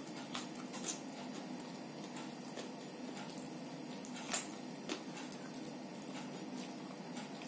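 Crisp bites and chewing of raw cucumber and carrot slices: a few sharp crunches near the start, the loudest about four seconds in and one more soon after. A steady low hum runs underneath.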